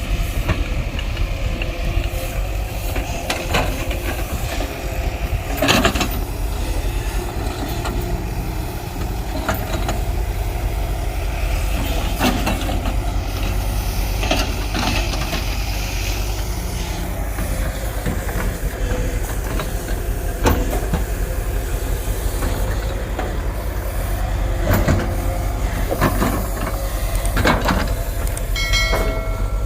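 Heavy diesel earthmoving machine running steadily, with scattered metallic clanks and knocks, and a few short beeps near the end.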